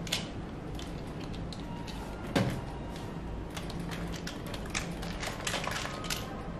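Hard plastic parts of a DX Daivoyager combining-robot toy clicking and knocking as they are picked up and handled. There is one louder knock about two seconds in, then a quick run of small clicks.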